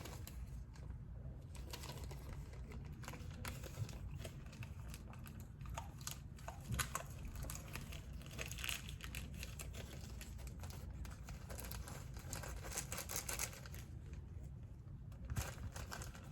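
Small carburetor parts being handled and wiped dry: scattered light clicks with rustling and crinkling, over a low steady hum.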